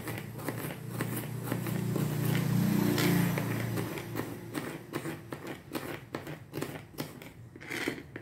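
Kitchen knife slicing shallots on a plastic cutting board: a run of quick, uneven taps as the blade strikes the board. A low rumble swells and fades over the first four seconds.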